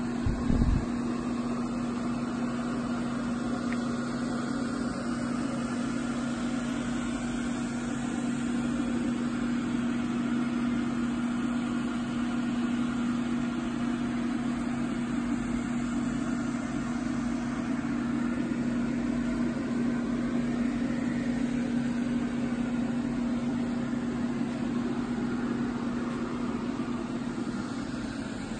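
Dual-motor electric crate motor running with a strong steady hum and a fainter whine that slowly rises and shifts in pitch, easing off near the end. A couple of short knocks about half a second in.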